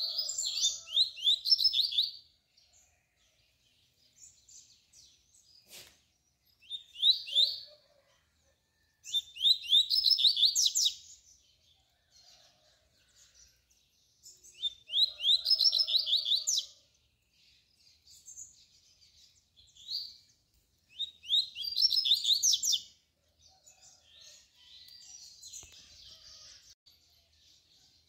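Caged double-collared seedeater (coleiro) singing its tui-tui song: about five loud phrases a few seconds apart, each a rapid run of high notes, with softer notes between them. A single sharp click sounds about six seconds in.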